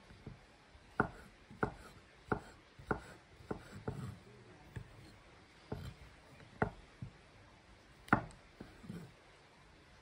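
Chef's knife slicing button mushrooms on a wooden cutting board: each cut ends in a sharp knock of the blade on the board. There is a run of six cuts at a little under two a second, a pause, then a few more spaced-out cuts, the loudest one near the end.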